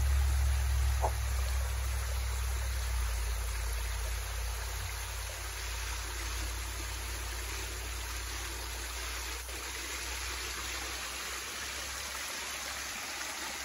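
Creek water pouring over a small weir, a steady rushing and splashing, with a low rumble under it that fades away over the first half.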